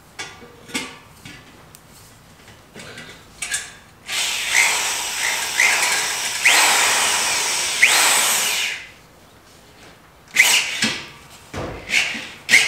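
Cordless power driver spinning a socket on the clamp bolt of a clamp-on stainless exhaust tip, tightening it. One run of about five seconds with a few short rising whines, then two brief bursts near the end, after some light knocks of handling at the start.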